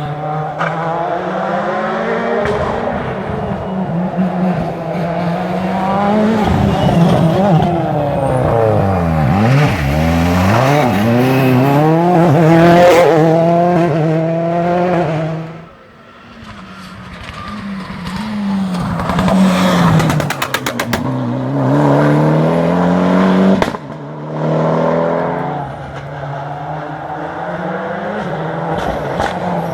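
Rally car engines revving hard through gear changes, their pitch repeatedly rising and falling. It dies down briefly around the middle, then builds again, with a burst of rapid crackles a few seconds later.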